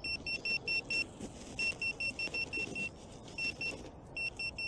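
Handheld metal-detecting pinpointer beeping in rapid high pulses, about five a second, in several short runs with brief gaps as it is passed over a buried metal target in the forest floor.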